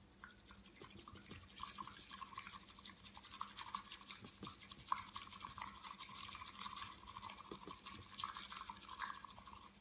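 Bamboo matcha whisk (chasen) whisking tea in a ceramic bowl: a rapid, steady scratchy brushing of the tines through the tea against the bowl, stopping near the end.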